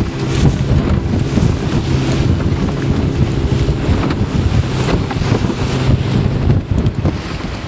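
A motor boat's engine running with a steady drone, under heavy wind buffeting the microphone and the rush of choppy sea water past the hull.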